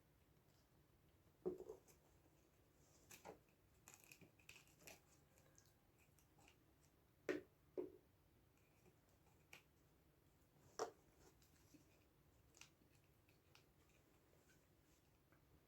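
Near silence broken by a few sharp clicks and light knocks from a Bluetooth speaker and tools being handled as the speaker is opened up. The loudest come about a second and a half in, twice around seven to eight seconds, and once near eleven seconds.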